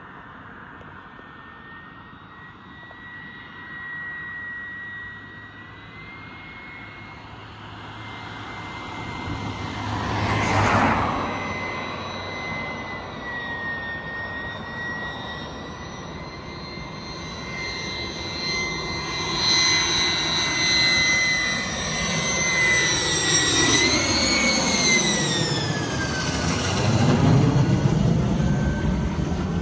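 Lockheed U-2's single turbofan jet engine at low approach power, a steady high whistle over a rushing roar that grows louder as the aircraft comes in to land. The whistle and roar sweep down in pitch as it passes close by in the last few seconds. A brief rush of noise about ten seconds in.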